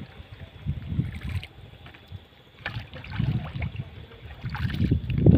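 Small canoe being paddled with a wooden paddle: the blade dips and pulls through the water with splashes and trickles every second or two, with dull low rumbles that grow louder toward the end.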